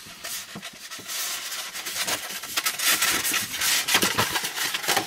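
Paper rustling and crinkling as a large printed paper book cover is handled and unfolded, starting softly and getting busier after about a second.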